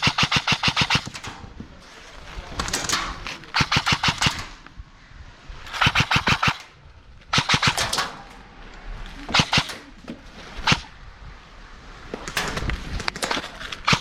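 Airsoft guns firing rapid full-auto bursts, about eight bursts of quick evenly spaced shots, the longest right at the start and another near the end.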